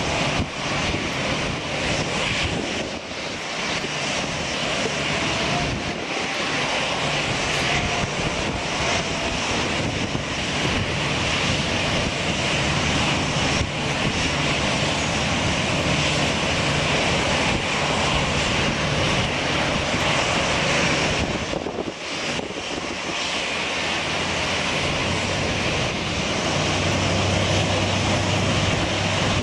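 Airbus A321 jet engines on approach and landing: a loud, steady jet noise. Near the end, as the airliner rolls on the runway, a low steady hum joins in.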